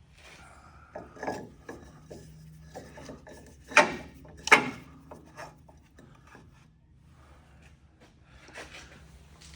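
Hand work on suspension parts and tools: rubbing and scraping with scattered knocks, the two loudest sharp strikes about four and four and a half seconds in.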